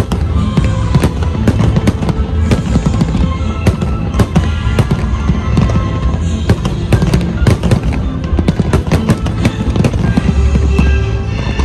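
Fireworks display: a dense run of sharp bangs and crackles from bursting shells and rising rockets, over steady music.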